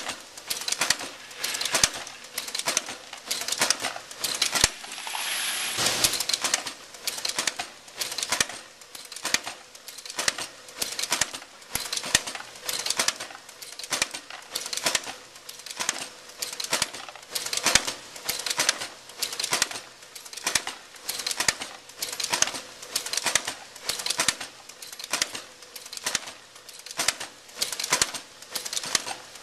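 Sheet-metal stamping press cycling a progressive deep-drawing die for pen and pencil cases. Sharp metallic strokes come in a quick, even rhythm, each with a clinking ring.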